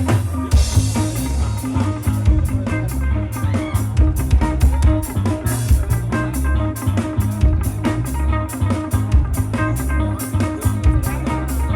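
Live rock band playing an instrumental passage of a song: guitar over a steady drum kit beat and bass, with no vocals.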